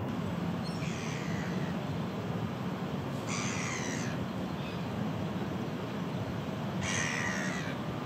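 Gull giving harsh, slightly falling calls, three clear ones spaced a few seconds apart and a fainter one between, over a steady low background rumble.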